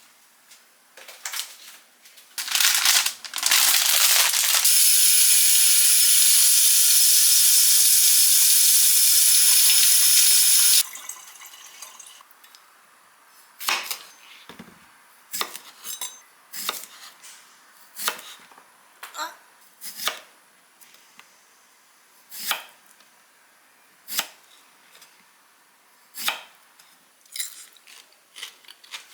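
A kitchen tap running steadily for about six seconds, then a knife cutting on a cutting board in separate sharp knocks about once a second, the slicing of cucumbers.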